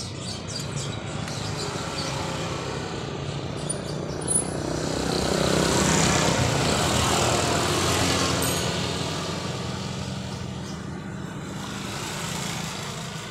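A motor vehicle's engine running steadily, with the sound of a vehicle passing by that swells to its loudest about six seconds in and then fades.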